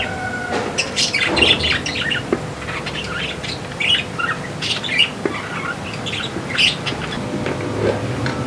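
Birds chirping and squawking, many short overlapping calls, over a faint steady hum.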